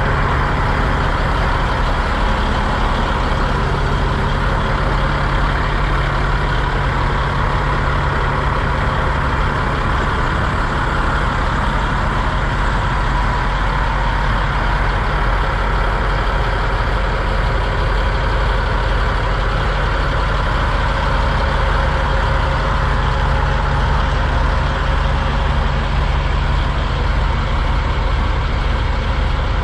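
Diesel semi-truck engine idling steadily, a continuous low, even engine sound with no changes.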